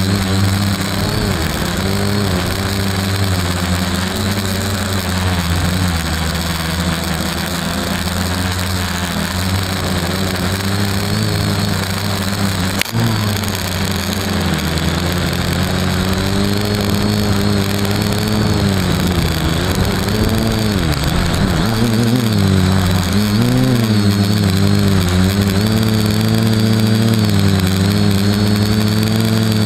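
FPV quadcopter's electric motors and propellers, recorded by its onboard camera, buzzing steadily with a pitch that rises and falls as the throttle changes, with one sharp click about thirteen seconds in.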